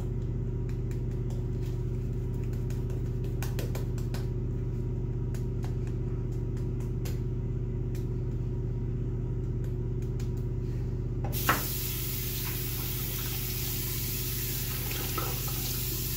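Dogwood Timberwolf 26 mm shaving brush working lather on the face, with soft brushing strokes, over a steady low hum. About eleven seconds in, a tap is turned on and water runs into the sink.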